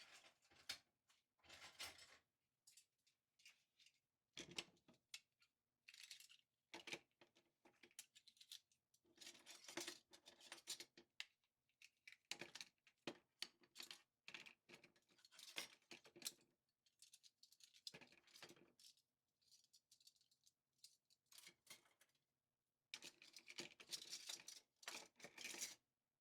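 Quiet clinking and rattling of metal cutlery being handled and set down in a drawer: irregular clusters of short clatters with brief pauses between them.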